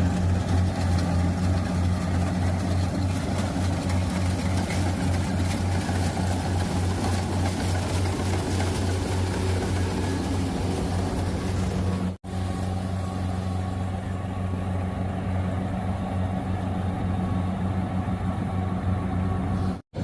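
Rice combine harvester running: a steady low engine drone over a rushing mechanical noise from the machine at work. The sound breaks off for an instant about twelve seconds in and again near the end.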